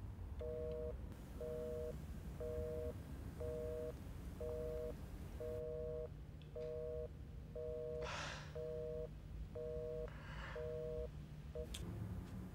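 Telephone busy signal: a two-note tone beeping about once a second, each beep about half a second long, heard after the other end has hung up. It cuts off suddenly near the end.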